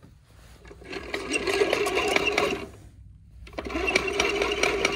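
A small hand-cranked geared mechanism being spun, whirring with a steady whine and rapid gear clicking. It runs twice for about two seconds each, with a short pause between.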